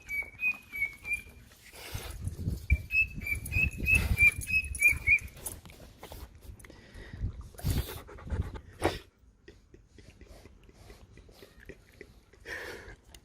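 A dog whining in runs of short, high-pitched cries, about three or four a second, stopping about five seconds in; scattered light clicks and taps follow.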